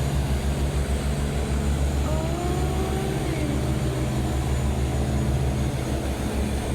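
A large engine running steadily: a low drone with a fast, even throb.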